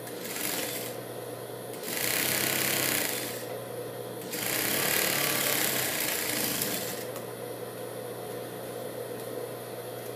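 Industrial single-needle sewing machine stitching a narrow fabric hem in three runs: a short one at the start, one of about a second and a half, then a longer one of about two and a half seconds, over a steady low hum.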